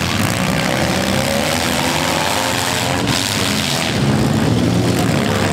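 Engines of several demolition derby compact cars revving hard at once, many pitches rising and falling over one another in a loud, continuous din.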